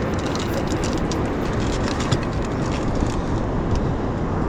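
Steady rushing noise of wind and surf on an open ocean beach, with wind buffeting and crackling on the microphone.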